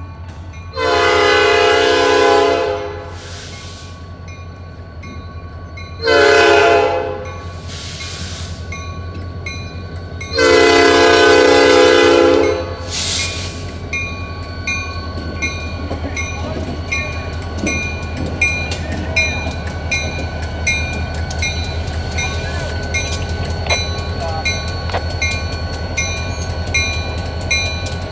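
EMD SD40-2 diesel locomotive's horn sounding for a grade crossing: a long blast, a short one and another long one, over the steady ringing of the crossing bell. The locomotive then runs through the crossing with its diesel engine working and its wheels clicking over the rails.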